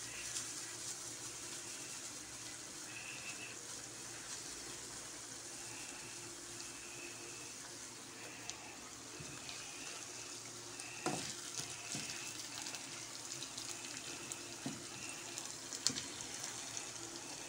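Onions, tomato paste and minced meat sizzling steadily in a frying pan, with a few sharp knocks of a wooden spoon against the pan about two-thirds of the way in and near the end.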